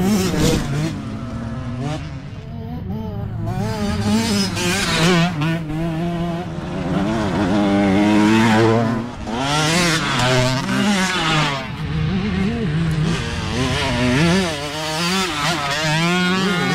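Youth dirt bike engines revving up and down as riders come along a dirt trail one after another, pitch rising and falling with each throttle and gear change.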